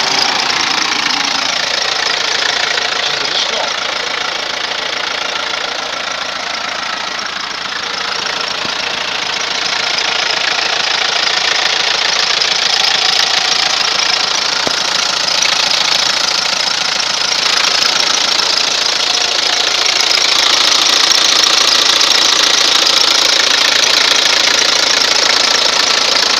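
Alfa Romeo 164's VM 32B turbodiesel engine idling with a steady diesel clatter, heard close up in the open engine bay.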